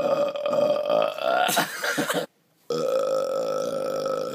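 A man belching two long, drawn-out burps with a steady pitch, the first ending about two seconds in and the second following after a brief pause.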